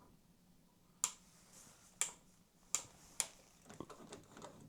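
Four sharp clicks about a second apart, then a run of fainter ticks near the end. No motor hum: the model locomotive is dead with the power on.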